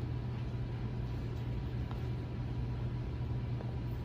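A steady low hum under even background noise, with two faint soft clicks, about two seconds in and shortly before the end.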